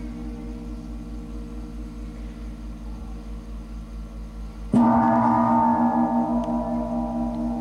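A deep gong struck once, a little under five seconds in, ringing on with a slow wavering hum over the fading ring of an earlier stroke. It is sounded at the elevation of the chalice at the consecration of the Mass.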